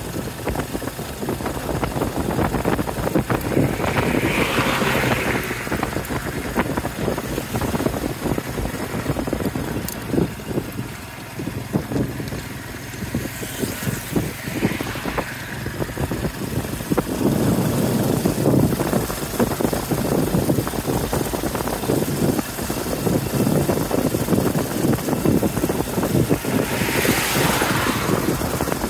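Riding in a motorbike-drawn tuk-tuk: a steady engine drone with road noise. It swells three times as other vehicles pass.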